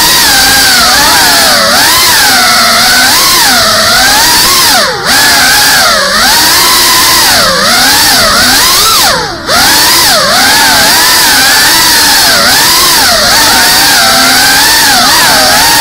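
GEPRC CineLog 35 cinewhoop FPV drone's brushless motors and ducted propellers whining loudly, the pitch rising and falling constantly with the throttle. The whine dips briefly twice, about five and about nine seconds in, as the throttle is cut and then picked up again.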